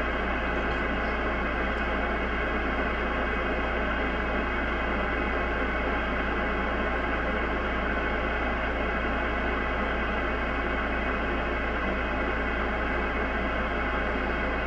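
Steady hiss of band static from an HF ham transceiver's speaker, tuned to the 10-meter band with no station coming through, over a constant low hum.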